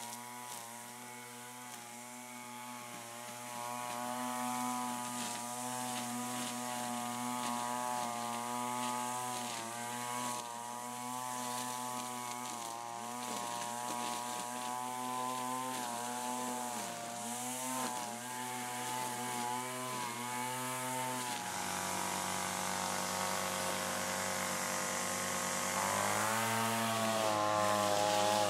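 Gas-powered two-stroke string trimmer running at a distance, its engine note wavering up and down as the throttle is worked. The pitch shifts about three quarters of the way through and rises near the end.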